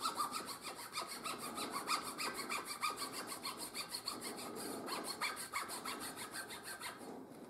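Fine-toothed razor saw cutting through a small wooden dowel crank pin in quick, even back-and-forth strokes, trimming the pin's excess off. The sawing stops near the end.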